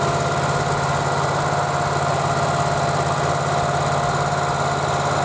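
Generac GP17500E portable generator's 992cc overhead-valve engine running steadily at reduced idle speed, held down by its idle control switch while no power is drawn.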